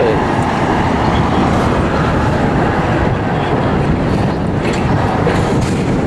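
Steady, loud, low rumbling noise with no clear rhythm or distinct events.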